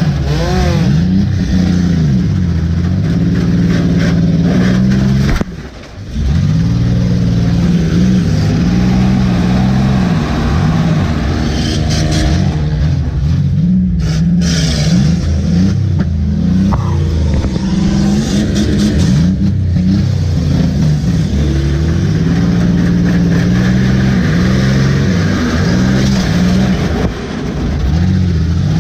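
Demolition derby car's engine revving hard, heard from inside the cab, its pitch climbing and falling over and over as the throttle is opened and backed off. It drops away briefly about six seconds in and again near the end.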